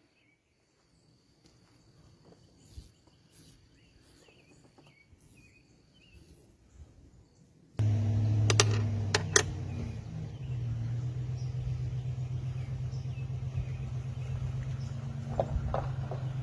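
Near quiet with faint insect chirping, then about eight seconds in a machine starts abruptly and runs with a steady low hum. Two sharp clicks come just after it starts.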